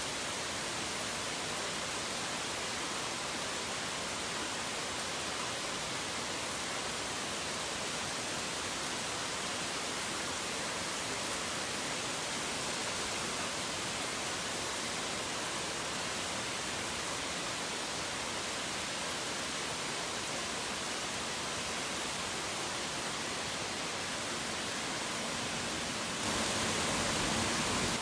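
Heavy rain falling as a steady, even hiss, which turns a little louder and brighter near the end.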